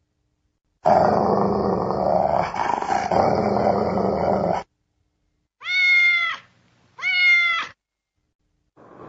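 Animal sound effects: a dog growling for about four seconds, then two cat meows about a second apart, each falling in pitch at the end.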